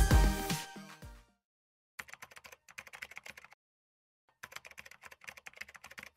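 Computer-keyboard typing sound effect: two runs of rapid key clicks, the first about a second and a half long, then a short pause before the second. A tail of electronic music dies away about a second in.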